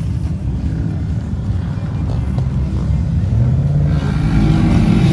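Motor vehicle engine running with a deep rumble, getting louder and higher in pitch about four seconds in.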